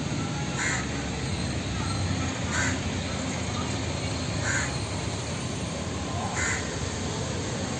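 A crow cawing, four short calls evenly spaced about two seconds apart, over steady background hiss.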